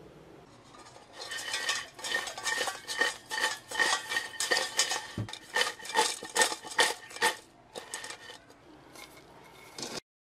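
Crisp fried waffle-cut potato fries rattling in a stainless steel pot as the pot is shaken to toss them in seasoning. The clatter comes in quick repeated tosses, about three a second, with the pot ringing. It eases off near the end.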